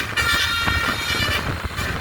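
Bus telolet horn, a Basuri multi-trumpet musical air horn, sounding a held multi-tone chord. The chord resumes just after a brief break, holds for over a second and fades about a second and a half in, over a low rumble.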